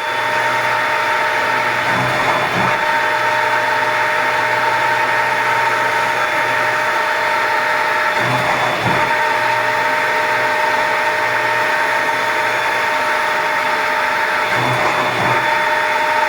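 Schütte SF26S cam-controlled six-spindle automatic lathe running, a steady mechanical hum with a few constant whining tones. A heavier clatter recurs about every six seconds, three times, as the machine repeats its cycle.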